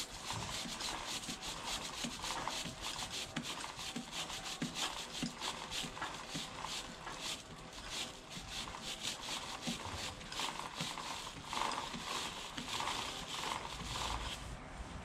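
Chain-cleaning brush scrubbing a KTM 890 Duke R's WD-40-wet drive chain at the rear sprocket: rapid, even back-and-forth rubbing strokes that repeat without a break.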